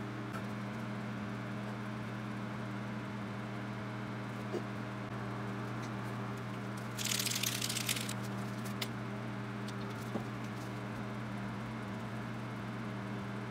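Small electric motor of a tumbler cup turner humming steadily as it turns the cup. About seven seconds in there is a roughly one-second scratchy burst, with a few light clicks around it, from a stick stirring epoxy resin in a small plastic cup.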